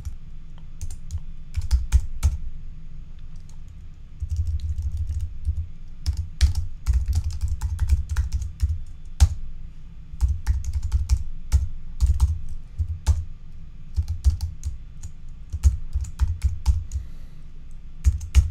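Typing on a computer keyboard: runs of rapid key clicks with short pauses between, each run carrying a dull low thud under the clicks.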